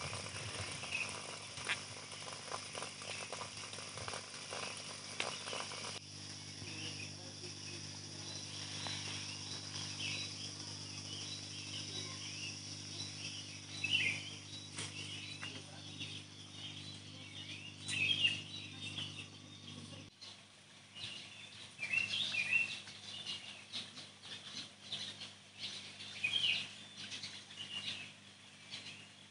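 Evening outdoor ambience: a steady high hiss and a low steady hum, with scattered short bird chirps from about a third of the way in.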